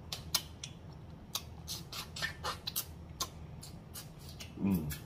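Close-miked wet mouth sounds of someone eating: irregular lip smacks and clicks while chewing and licking sauce off the fingers, with a short hummed "mm" near the end.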